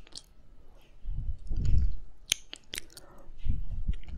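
Wet mouth sounds right on a binaural microphone's silicone ear: licking and lip smacks with many sharp wet clicks. Two low muffled rumbles come through the microphone, about a second in and near the end.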